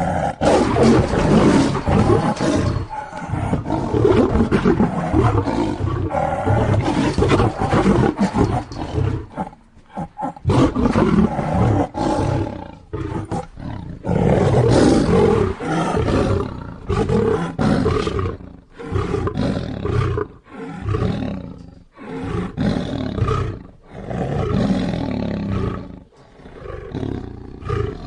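Lion roaring again and again, long rough roars broken by short pauses.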